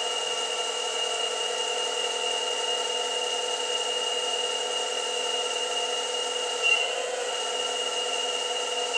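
Hydraulic pump of a 1:8-scale Caterpillar 390D model excavator running with a steady whine of several tones while a cylinder moves the stick. The pump surges briefly about seven seconds in.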